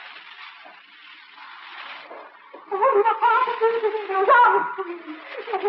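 Hiss and static from a 1936 shortwave opera broadcast. About three seconds in, a much louder wavering, warbling pitched sound starts, garbled by the shortwave signal.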